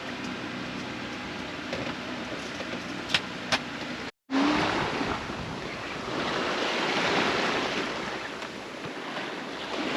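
Sea and wind rushing around a sailboat under way, swelling and easing like passing waves. Before that, a steadier hiss with two sharp clicks, cut off abruptly about four seconds in.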